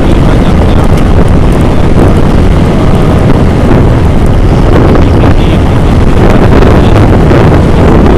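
Loud, steady wind rumble on the Xiaomi Yi 2K action camera's microphone while travelling along a road at speed, with vehicle noise underneath.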